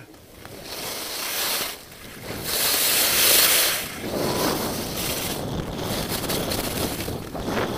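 Wind buffeting the microphone during a fast ski descent, mixed with the hiss and scrape of skis running over packed snow. The noise swells and eases several times, with brief dips near 2 and 4 seconds in and its loudest stretch in the middle.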